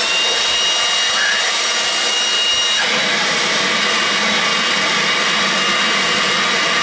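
Milwaukee cordless leaf blower running at full speed, a loud steady rush of air with a high motor whine, as it blows dust backwards out of a laser water chiller's intake filter.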